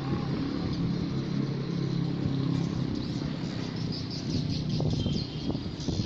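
Swiftlets chirping in short high calls over the steady hum of a motor vehicle running nearby, the engine hum easing after about three seconds while the chirps grow more frequent.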